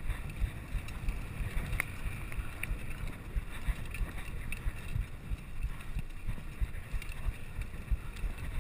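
Mountain bike rolling over a dirt singletrack: a steady low rumble from the tyres and frame, with many small knocks and rattles over bumps, and wind on the microphone.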